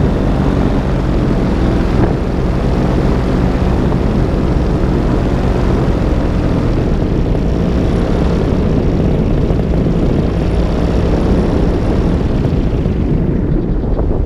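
A small propeller aircraft's engine running steadily, heard close up from an onboard microphone during a low descent toward a landing.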